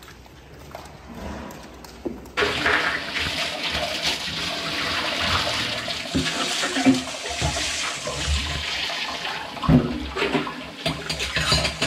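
Water running from a hose into a nearly empty stainless-steel tank, starting suddenly about two seconds in and pouring steadily, with a few knocks near the end.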